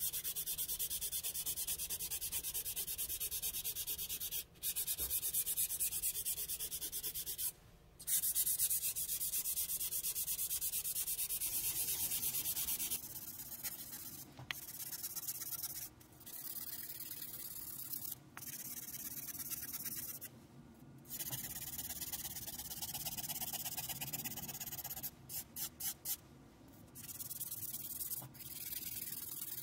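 Hand-held sharpening stone rubbed in rapid strokes along the steel blade edge of an M7 bayonet, a steady scraping broken by several short pauses. The strokes are softer from about halfway on.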